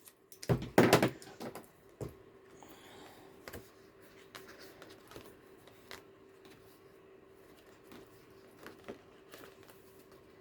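Paper and card being handled: rustling and light taps as the pages and pockets of a handmade junk journal are moved, loudest in a brief flurry about half a second to a second in, then scattered faint clicks. A faint steady hum runs underneath.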